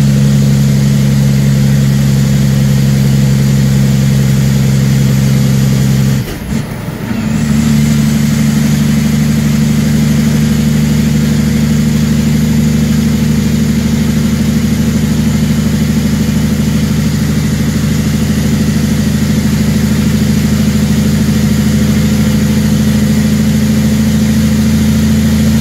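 Heavy truck's diesel engine heard from inside the cab while cruising on the highway: a steady, loud engine drone. About six seconds in the engine note briefly drops out and then picks up again.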